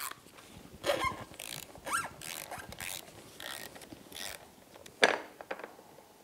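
Ratchet clicking through a series of short strokes as a 65 mm cap-type oil filter wrench loosens and unscrews the oil filter on a Mercury 20 HP four-stroke outboard, with a sharp click about five seconds in, the loudest sound.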